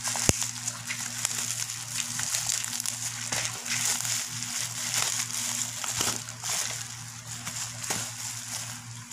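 Bubble wrap around a small parcel crinkling and crackling as it is handled and unwrapped, with a sharp crack about a third of a second in. A steady low hum runs underneath.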